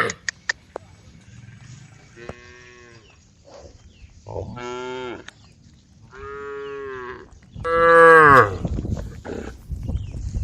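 Cows mooing: four separate moos about two seconds apart, the last one near the end the loudest. A few sharp clicks come about half a second in.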